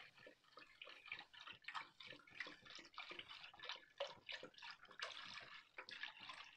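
Milk pouring in a steady stream from a carton into a wide metal pot, a faint continuous splashing and fizzing as it foams.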